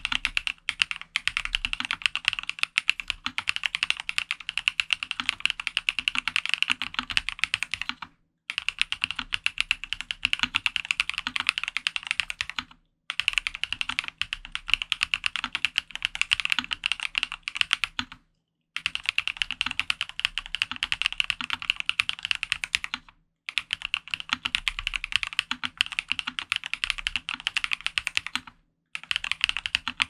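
Fast continuous typing on a custom Dolphin PC mechanical keyboard with a polycarbonate plate, lubed Gateron Raw switches, Hammerworks CRP R4 keycaps and plate and case foam: a dense stream of keystroke clicks. It comes in runs of a few seconds, broken by short silent gaps about every five seconds.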